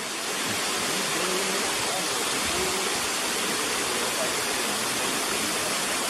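Steady rush of a waterfall, an even hiss of falling water, with faint voices of people talking under it.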